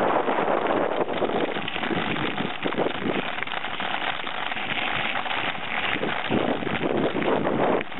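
Mountain bike rolling over a gravel path: tyres crunching on loose stones, with a dense crackle of small knocks and rattles from the bike and its mounted camera jolting over the rough surface.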